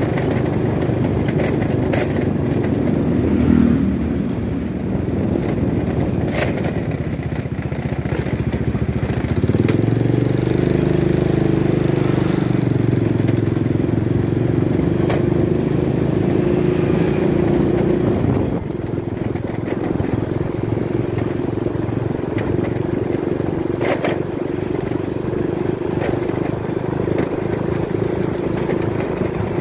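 Motorcycle engine running steadily while riding along a road, heard from on the bike. It grows louder about ten seconds in, then drops back at around eighteen seconds.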